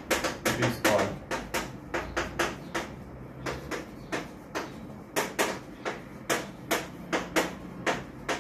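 Chalk writing on a chalkboard: an irregular run of sharp taps and short scratches, a few a second, as each letter is written.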